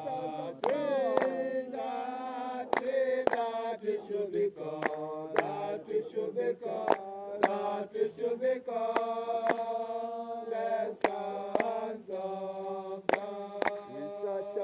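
Voices chanting a slow, drawn-out melody over a held low note, Bobo Shanti Rastafari style, with sharp beats struck about once or twice a second.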